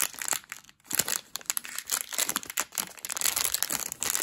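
A small advent-calendar bag crinkling and rustling as it is handled and pulled open by hand, in quick irregular crackles.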